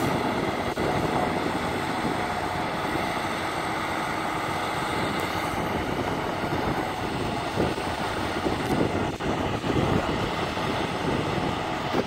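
Pile-drilling rig running steadily as it spins a steel pipe pile down into the ground, an even machine noise with no hammer blows.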